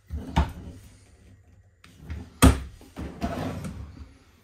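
Bathroom vanity cabinet being handled: a click as the door opens, a sharp knock about halfway through as it shuts, then a rattling scrape as a wooden drawer is pulled out on its slides.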